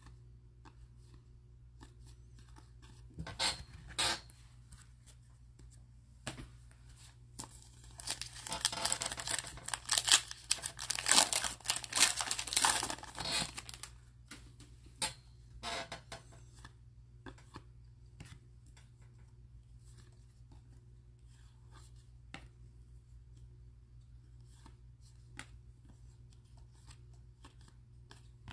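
Baseball trading cards being handled and flipped through, with scattered soft clicks and slides of card against card. About eight seconds in comes a dense stretch of crinkling and tearing, the loudest part, lasting some six seconds, as of a card pack wrapper being torn open.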